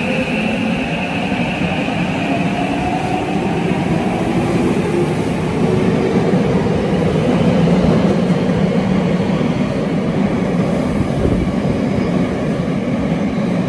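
Tokyo Metro Hanzomon Line train pulling out of the station, its motors whining upward in pitch as it gathers speed over steady wheel-on-rail running noise.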